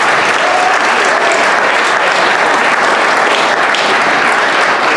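Roomful of seated dinner guests applauding, steady clapping throughout.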